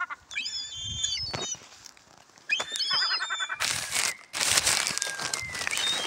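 Herring gulls calling, with a few short, high calls in the first half, then a loud rustling noise through the second half.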